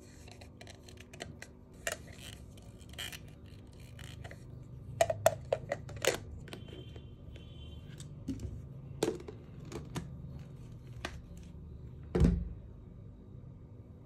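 Hard plastic parts of a Kärcher VCH 2 handheld vacuum clicking and knocking as they are handled and fitted together: the filter goes into the dust container and the container onto the body. A quick cluster of sharp clicks comes about five seconds in, and a single heavy thump near the end is the loudest sound.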